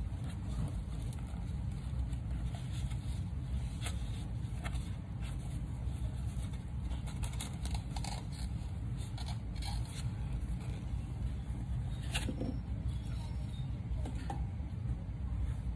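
Plastic crinkling and rustling from disposable gloves and a piping bag as thick lotion is squeezed into a plastic applicator, with scattered small clicks and taps, a sharper tap about twelve seconds in. A steady low hum runs underneath.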